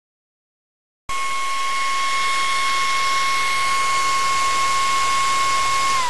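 A 180-cubic-feet-per-minute cooling fan on a finned heatsink running at full speed: a steady rush of air with a high whine, cutting in abruptly about a second in. Its pitch starts to fall at the very end as its power is switched off.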